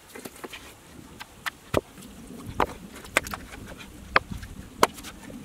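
Flat slabs of rock clacking against each other as they are set by hand into a fire ring: about half a dozen sharp knocks, irregularly spaced.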